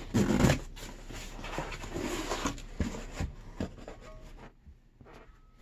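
Cardboard box being opened and the packaged parts inside handled: irregular rustling, scraping and light knocks, loudest about half a second in, dying away near the end.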